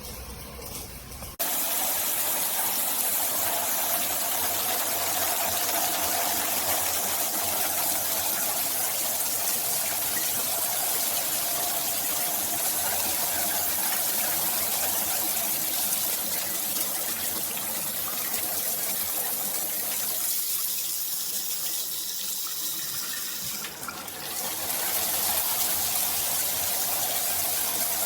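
Rainfall shower head running, water falling in a steady rush. The water noise comes in sharply about a second and a half in and thins briefly around twenty seconds in.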